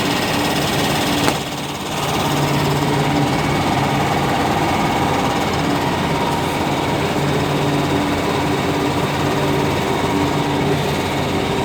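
Automatic book shrink-wrapping machine running, a steady mechanical drone with hum tones that fade in and out. About a second in there is a sharp click, then the noise briefly drops before resuming.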